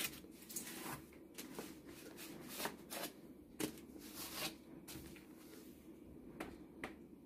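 Irregular light clicks, taps and rustling from a plastic baby highchair and its parts being handled, a couple of small knocks a second.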